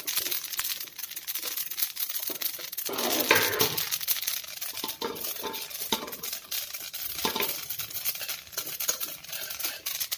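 Flax seeds crackling and popping as they dry-roast in a steel kadhai, with a metal spatula scraping through them and a steel lid clinking against the pan. The popping is the sign the seeds are still roasting; it stops once they are fully roasted.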